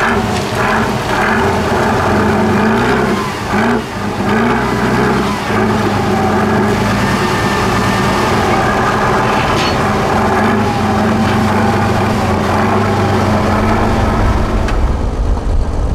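Heavy diesel engines of a stuck Tatra trial truck and the excavator towing it out on a strap, working under load, the pitch rising and falling over the first few seconds and then holding steady. Near the end a deeper engine rumble takes over.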